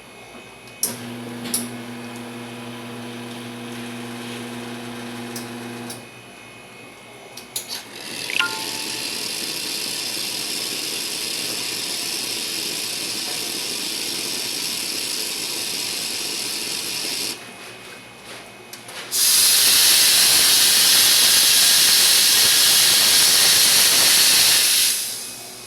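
Wega Lunna espresso machine under test: a steady mechanical hum for about five seconds, then a steady hiss of steam for about nine seconds, and after a short pause a louder hiss of steam for about six seconds.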